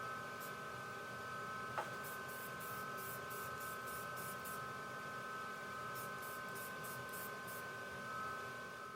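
Aerosol spray-paint can spraying in three runs of short, high-pitched hissing spurts, about four or five a second, over a faint steady hum.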